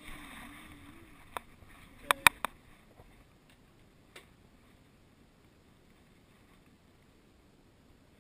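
Three sharp knocks in quick succession about two seconds in, after a faint wavering whine-like tone and a single click; then very quiet, with one more small click.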